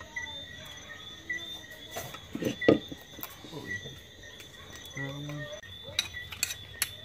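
Crickets chirping steadily, a short chirp about every half second over a continuous high trill. A few knocks and clicks sound over them, the loudest about two and a half seconds in.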